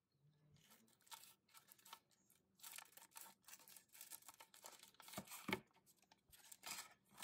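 Scissors cutting through a LEGO minifigure blind bag's thin plastic, with the packet crinkling as it is pulled open; faint, uneven crackles.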